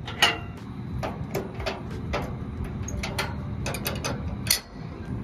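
Irregular metallic clicks and clanks as the steel deck pins and perforated upright posts of a car-hauler trailer are worked by hand, about a dozen in all, the loudest right at the start and another near the end, over a steady low hum.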